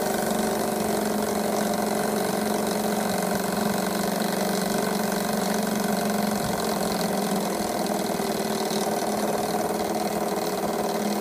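GF Mars high-speed model steam engine running fast and steady on steam from a Pendle boiler, an even, unbroken note.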